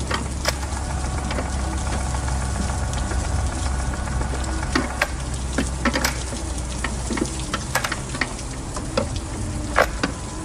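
Irregular metallic clicks and taps of hand tools and parts against the car's sheet metal and fittings as parts are worked loose in an empty engine bay, over a steady low hum and hiss.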